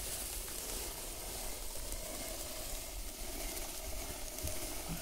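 Stone hand quern turning, its upper millstone grinding grain against the lower stone with a steady gritty rasp.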